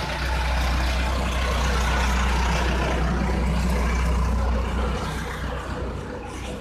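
Steady low rumble over background noise, easing off about five seconds in.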